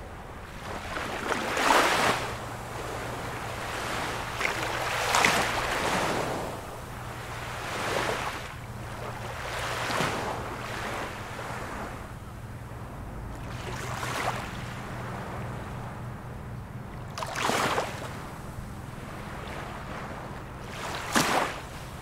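Small ocean waves breaking and washing up on the shore, one rushing surge every two to four seconds, about seven in all, over a steady hiss of surf.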